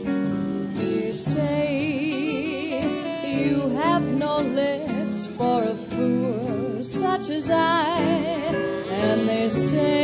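Swing band playing live: a lead melody with a strong vibrato over guitar and the rhythm section.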